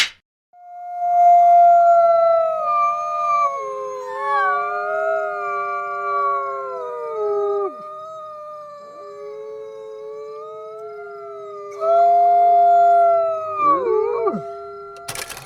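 Wolves howling in chorus: several long, overlapping howls, some held steady and some gliding up and down in pitch. A loud new howl comes in about twelve seconds in, and the voices fall away in pitch near the end.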